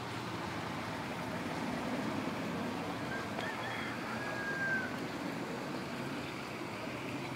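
Steady rushing of flowing water, with a few faint, short, high whistle-like tones about halfway through.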